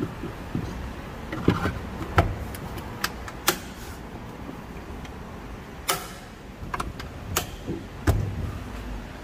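Scattered clicks and knocks of tools and metal parts being handled, about a dozen at uneven intervals, a few of them sharp and ringing, over a low steady background noise.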